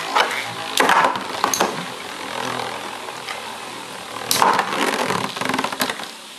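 Two Metal Fight Beyblade spinning tops, Lightning L-Drago and Meteo L-Drago, whirring as they circle a plastic stadium, with sharp clacks each time their metal wheels strike. The hits come in clusters, about a second in and again between about four and six seconds in.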